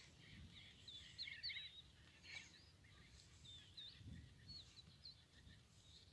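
A flock of sandgrouse calling: many faint, short chirping calls that overlap and bend up and down in pitch, thickest in the first few seconds and thinning out later.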